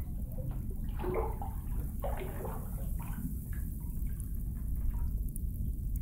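Bathwater sloshing in a tub, with a scatter of small splashes and drips over a low steady rumble.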